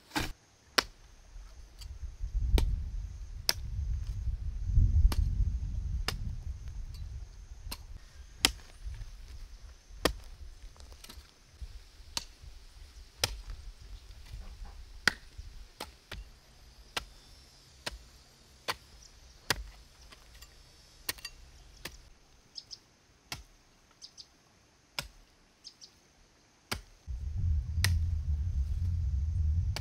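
Garden hoe chopping into dry, clumpy soil: sharp thuds and scrapes, roughly one stroke a second. A low rumble swells under the strokes near the start and again near the end.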